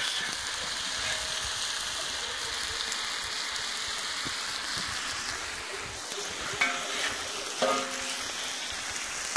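Meat and onions sizzling steadily in a discada, a plow-disc cooker, over a propane burner.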